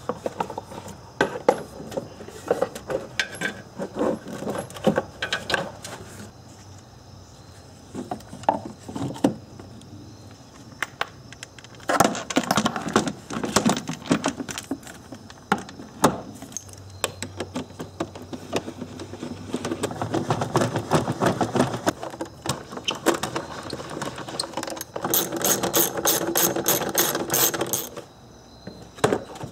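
Hand tools and plastic engine parts being worked during reassembly: a ratchet wrench clicking in runs, the longest a fast even run near the end, among knocks and rattles of the plastic air box and intake tube being set back in place.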